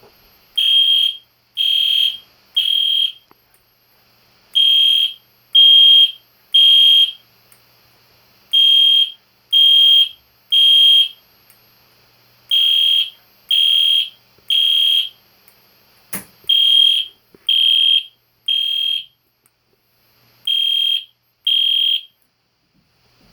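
An EST Genesis G1RF-HDVM fire alarm horn sounding loudly in the temporal code-3 evacuation pattern: three short, high-pitched electronic horn blasts, a pause, then three again, repeated six times. It is a higher-pitched take on the classic SpectrAlert horn tone. The last round stops after two blasts, and a single click falls about 16 seconds in.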